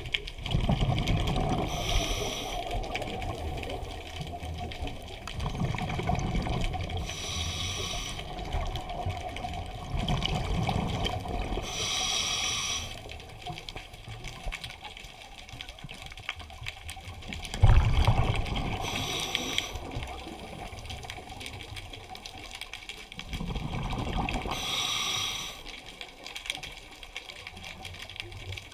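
Scuba regulator breathing recorded underwater: about five breaths, each a hiss through the regulator and a rush of exhaled bubbles, coming every five to six seconds.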